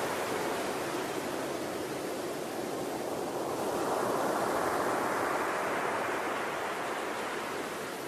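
Ocean surf breaking on the shore: a steady rush of water that swells about halfway through as the wave's foam washes up the beach, then eases off near the end.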